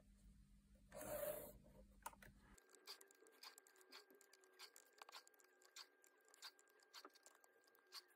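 Faint pencil-on-paper scratching and small clicks as lines are drawn along a plastic ruler and the ruler is shifted across the paper, with a brief louder scrape about a second in.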